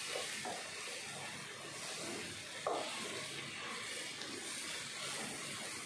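Steady, quiet sizzling of sliced brinjal, onion and tomato frying in oil with chilli and turmeric powder in a nonstick pan, as the masala is sautéed until its raw smell cooks off. A soft knock of the wooden spatula against the pan about halfway through.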